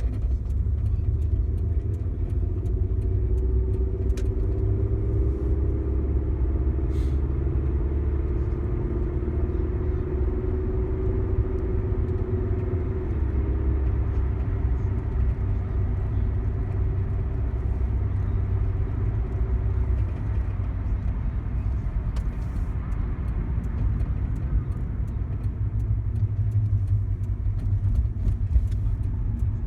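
Car running with a steady low rumble, with a humming whine that bends slightly up and down, heard from about two seconds in until about twenty seconds in.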